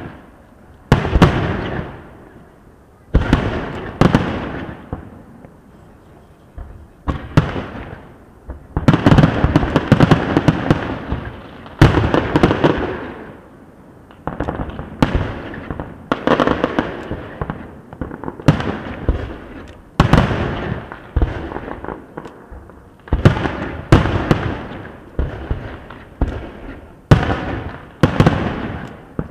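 Aerial fireworks shells bursting one after another, each sharp bang trailing off in an echo, with a denser run of rapid bursts and crackle partway through.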